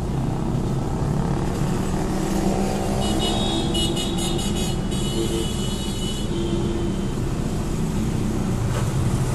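Road traffic at a busy junction: car engines running and cars passing in a steady rumble. A high-pitched steady tone sounds for about three seconds in the middle.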